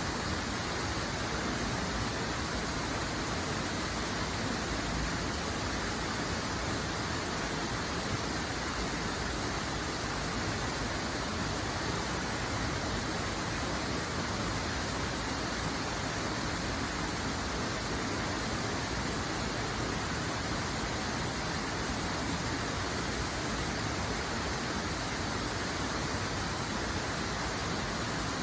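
Steady, unbroken rush of flowing water, like a waterfall or fast stream, with no change in level.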